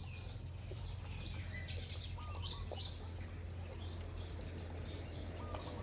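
Short, high chirping calls, repeated at irregular intervals, some gliding in pitch, over a steady low hum.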